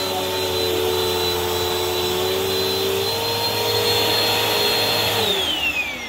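Bissell CleanView Swivel Pet Rewind upright vacuum cleaner running steadily with a high whine, then switched off about five seconds in, its motor falling in pitch as it winds down.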